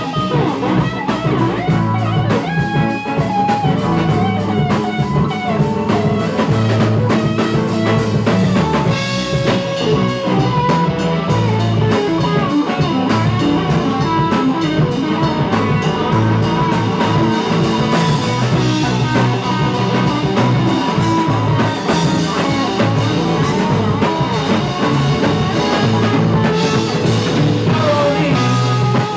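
Live band playing a song on electric guitar, acoustic guitar, electric bass and drum kit.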